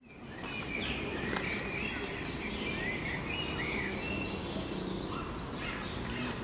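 Small birds chirping and singing in short phrases over a steady low background rumble of outdoor ambience, fading in at the start.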